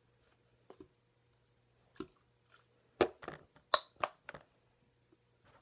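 Scattered short sticky squishes and clicks of thick, clumpy glue slime being worked in a bowl, a cluster of sharper ones about three to four and a half seconds in.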